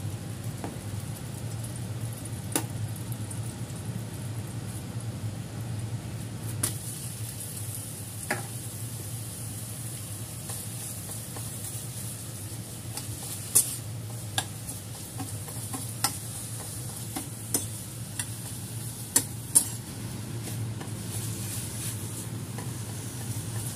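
Minced pork sizzling in a stainless steel wok while a slotted metal spatula stirs and breaks it up, with sharp clicks of metal on the pan every few seconds over a steady low hum.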